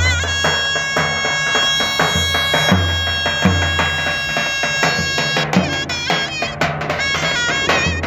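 Davul and zurna playing folk music. The zurna holds one long high note for about five seconds, then breaks into quick ornamented runs, over strokes of the davul bass drum.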